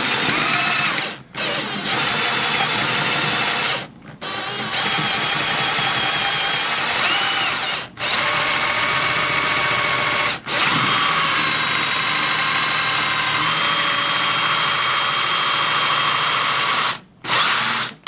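Cordless drill with a step bit cutting a half-inch hole through a plastic storage pocket. The motor runs in several spells of a few seconds, with short pauses between them, and its whine shifts in pitch as the bit bites.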